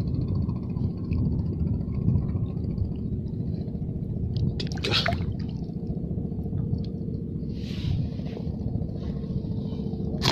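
A steady low rumble of wind on the microphone, with brief water splashes about five and eight seconds in as a hand reaches into shallow tidal water to pick up shellfish.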